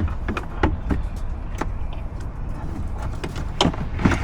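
Irregular light clicks and knocks of parts and tools being handled in a car door during a door-latch actuator replacement, over a steady low hum.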